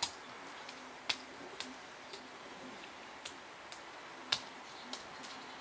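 Rainwater dripping after a storm: faint, sharp, irregular ticks of single drops, about one a second.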